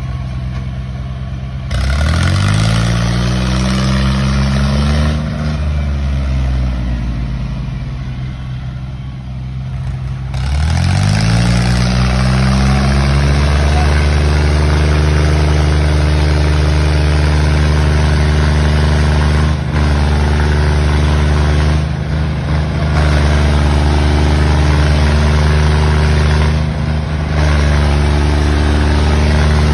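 John Deere farm tractors' diesel engines revving up hard under load as they pull against each other. The revs climb about two seconds in, sag, climb again near ten seconds, then hold high and steady with a few brief dips.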